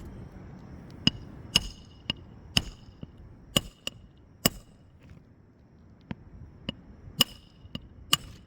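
Hammer driving roofing nails into a replacement asphalt shingle: about a dozen sharp, irregular strikes with a short metallic ring.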